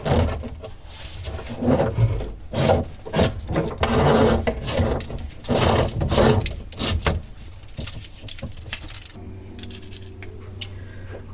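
Flexible dishwasher supply hose being fed through a cabinet hole, its metal fittings clinking and jangling irregularly with rustling handling. The handling stops about nine seconds in, leaving a low steady hum.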